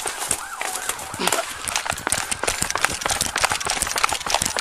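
Footfalls and the rub and knock of clothing and gear against a body-worn camera as a deputy runs, a dense run of irregular thumps. A brief wavering tone rises and falls between about half a second and a second and a half in.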